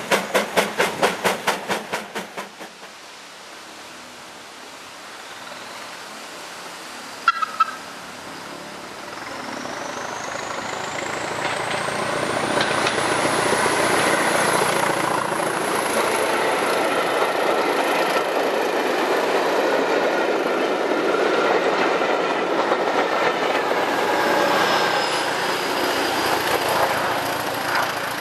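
Hastings diesel-electric multiple unit No.1001 approaching and running past close by under power. Its engine noise builds with a high whine rising, and the wheels clatter over the rail joints. A rhythmic pulsing of about four beats a second fades out in the first couple of seconds, and there is one short sharp sound about seven seconds in.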